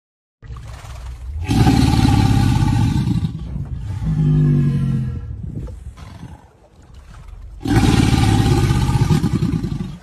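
Crocodilian growling: two long, rough, low growls of about two seconds each, with a shorter pitched moan between them.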